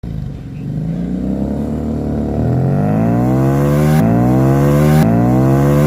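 FKM Victorino 250i's 250cc V-twin motorcycle engine accelerating. Its pitch rises steadily from about two seconds in, with sudden breaks about four and five seconds in.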